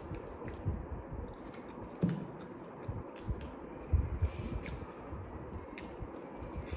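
Fingers tearing apart fried chicken over a crinkly foil-lined paper wrapper: scattered small crackles and rustles with a few soft thumps, and eating sounds as a piece is bitten near the end.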